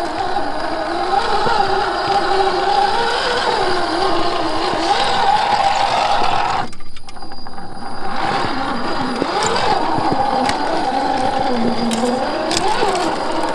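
Electric motor and gearbox of a scale RC rock crawler whining, the pitch wavering up and down with the throttle as it crawls over rock. The whine briefly drops out about halfway through, and scattered clicks of tyres and chassis on rock come near the end.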